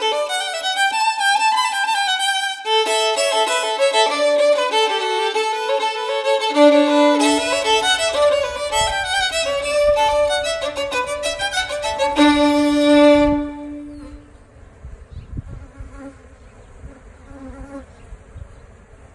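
Solo violin playing a lively tune that ends on a long held note about two-thirds of the way through. After it, honeybees buzzing quietly around a hive box.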